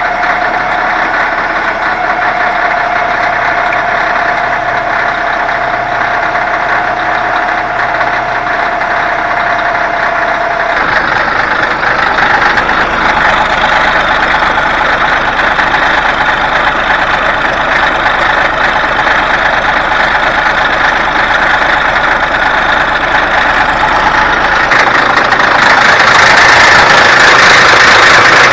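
Steady, loud engine-like machinery noise that changes character abruptly twice, about 11 seconds and 25 seconds in, and is louder near the end.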